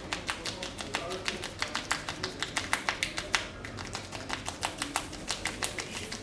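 Barber's percussive tapping massage: a rapid, uneven run of sharp hand slaps, about six a second, ending shortly before the close.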